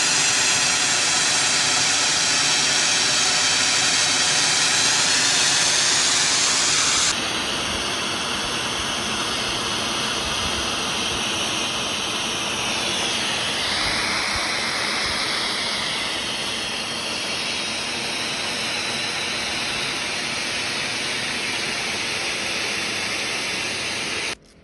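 Snowmaking guns on tall poles spraying, a steady loud hiss of air and water jetting out. The level drops about seven seconds in, and the sound stops abruptly near the end.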